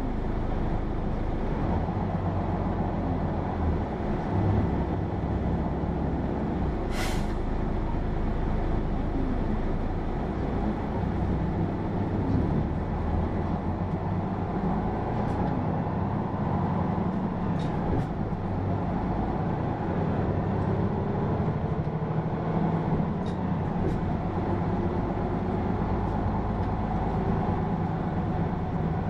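Hino PA-KR234J1 city bus under way, heard from inside: its diesel engine and drivetrain running steadily while the pitch shifts with the gears. A short hiss of air about seven seconds in.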